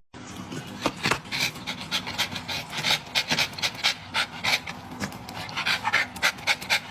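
A dog panting in quick, even breaths, about three or four a second.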